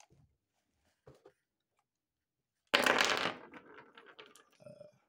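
Handling noise: a couple of faint clicks, then a sudden rustling scrape as a hand sweeps across a cardboard box, fading over about a second, followed by a few small ticks.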